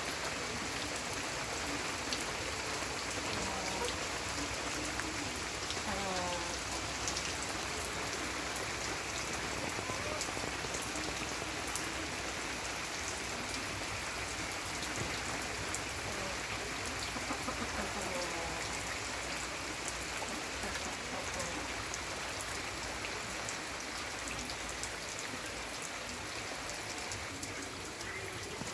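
A steady patter like rain falling, with a few faint chirping calls over it now and then.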